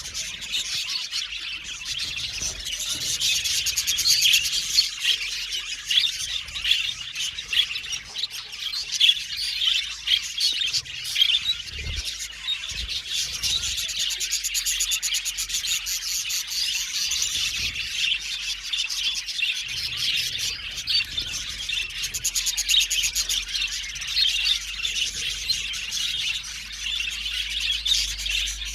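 A flock of budgerigars chirping and chattering, many high warbling calls overlapping without a break.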